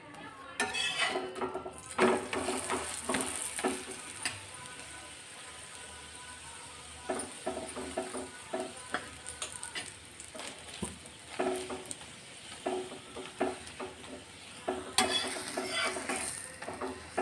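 Ghee-coated aloo paratha sizzling on a hot tawa, with a steady hiss throughout. A metal spatula presses and scrapes on the pan again and again, making short irregular clicks.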